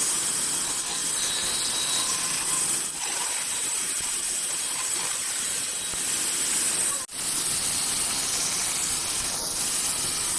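A steady hiss, cut off very briefly about seven seconds in.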